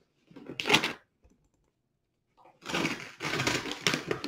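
Brown kraft-paper package wrapping being torn and crumpled by hand, crackling with quick clicks: a short burst about half a second in, a pause, then a longer stretch of tearing and crinkling from about two and a half seconds.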